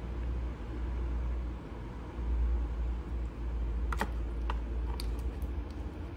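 A DeWalt one-handed trigger bar clamp being squeezed tight onto a part, giving several sharp clicks about four to five and a half seconds in, over a steady low rumble.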